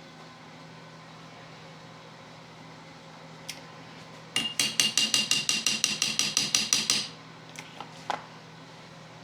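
A quick run of about fifteen hammer taps on metal, about six a second, ringing with each strike, with a few single metal clicks before and after.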